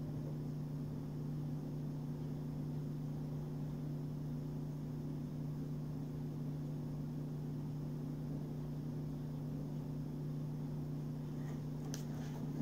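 Steady low room hum with a constant pitch, with a few faint clicks near the end.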